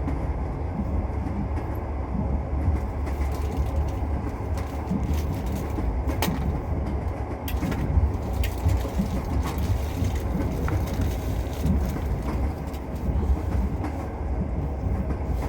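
Passenger train running on the rails, heard from inside the carriage: a steady low rumble of the wheels with a few sharp clicks and knocks.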